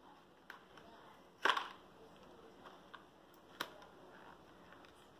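A few short, sharp clicks and taps from small items and packaging being handled, the loudest about a second and a half in and another a couple of seconds later.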